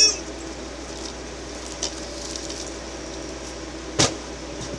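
A few faint taps, then a single sharp knock about four seconds in as a tossed item misses the box and drops to the floor, over a steady low hum.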